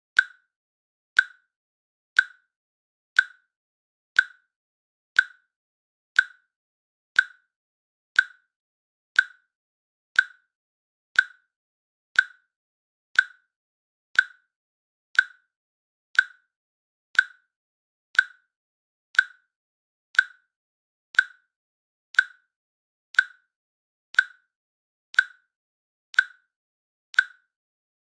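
Countdown timer clicks, one sharp, short click each second in an even steady rhythm.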